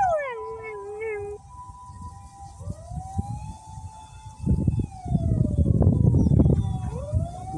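A husky-type dog howls along with a siren, one falling howl that ends about a second and a half in. A two-tone emergency-vehicle siren continues behind it, and a wailing siren rises and falls from about three seconds in, with a loud low rumble about five to seven seconds in.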